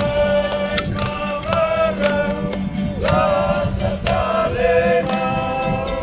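Choral music: several voices singing together in harmony over a steady low note.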